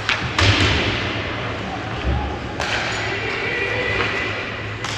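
Ice hockey play echoing in an arena: a few sharp cracks and thuds of stick, puck and boards over a background murmur of voices.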